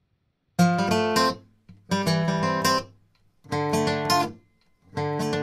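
Background acoustic guitar music: four strummed chord phrases, each about a second long, with short silent gaps between them.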